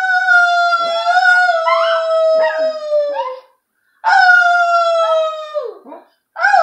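A small dog and a woman howling together: two long howls that each slide slowly down in pitch, then a short one near the end.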